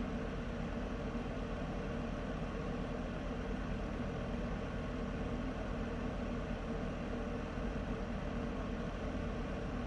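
Heater running steadily: an even rushing noise with a low, constant hum underneath.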